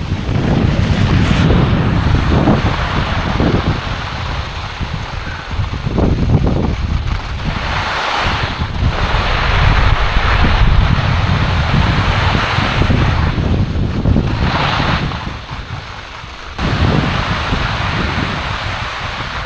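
Strong wind buffeting the microphone while skiing, mixed with the hiss of skis sliding over wet, icy snow. The hiss surges louder a few times.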